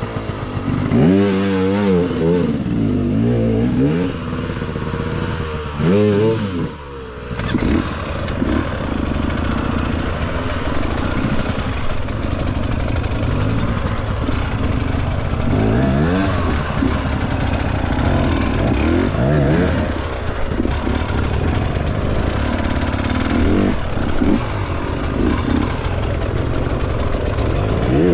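Enduro dirt bike engine revving up and down repeatedly as the throttle is opened and closed, with a constant rushing noise under it.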